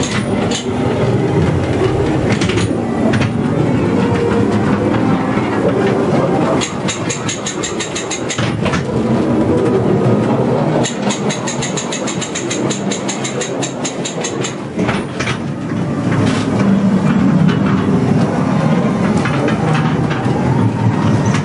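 A ghost train car running along its track, with a continuous rumble and clatter broken by knocks. Twice, about seven seconds in and again about eleven seconds in, there is a spell of rapid, evenly spaced clicking.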